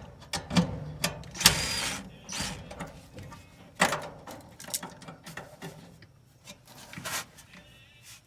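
Hands working on parts inside an electric dryer: a series of sharp clicks and knocks, with a brief scraping rustle about a second and a half in.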